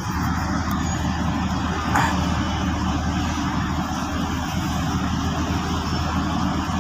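Car engine running at low speed, heard from inside the cabin as a steady low hum.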